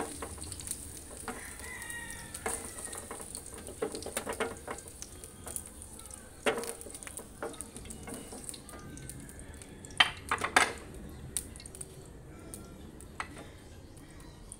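Diced carrots and potatoes sizzling in hot oil in a frying pan while a spatula scoops them out, scraping and knocking against the pan. The sizzle dies away as the pan empties, with a cluster of sharp clinks about ten seconds in.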